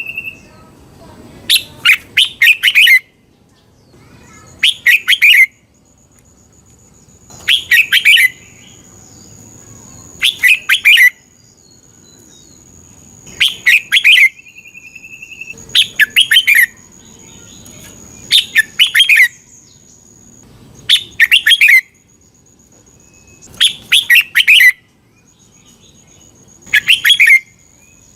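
Red-whiskered bulbul singing short, loud phrases of quick chirping notes, about one phrase every two and a half seconds. It is the kind of song played to train caged bulbuls or rouse them to sing.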